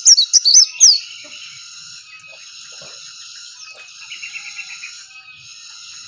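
Caged white-eye (pleci) singing a fast, loud run of sharp, high chirps that breaks off about a second in, followed by fainter high chirping and a short trill near the middle.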